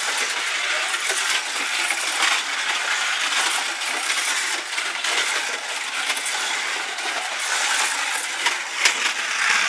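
Slot cars lapping a plastic track: a whirring, clattering run of small electric motors, pickup braids and tyres on the track, rising and falling as the cars pass.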